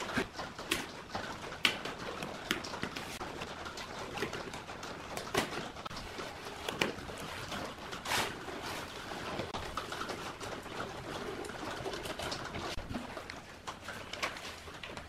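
A dove cooing in the background while adhesive wood-grain film is pressed, trimmed and peeled on a wooden cabinet, giving scattered clicks and rustles.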